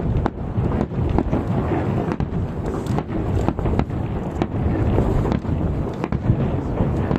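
Aerial fireworks shells bursting in quick succession: many sharp cracks and bangs, a dozen or more, over a continuous low rumble of booms.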